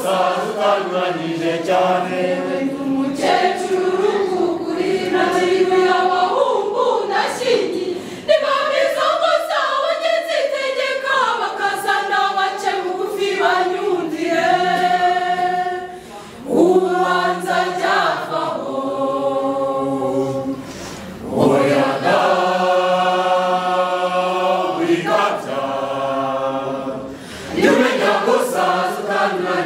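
Mixed choir of men and women singing a Kinyarwanda song in parts, in long phrases with a few short breaks between them.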